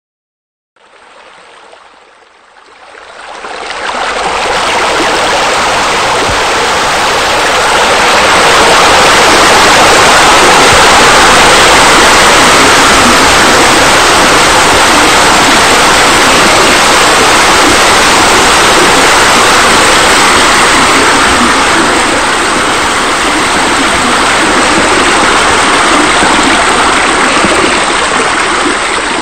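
Steady rush of falling, splashing water from pool water features, as an ambient sound effect. It fades in over the first few seconds and then holds loud and even.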